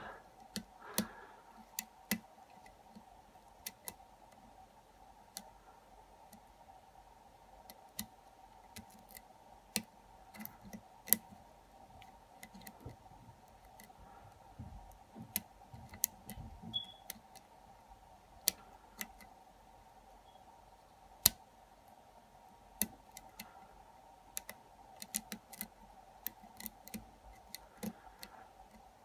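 Small metal clicks and ticks of a lock pick and tension wrench working the pins of a padlock held in a vise, coming irregularly with a few sharper snaps among them, while the lock sits in a false set. A faint steady hum runs underneath.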